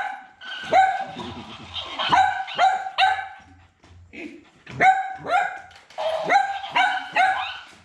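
Cavalier King Charles Spaniel puppy barking again and again: about ten short, high-pitched yaps in quick runs.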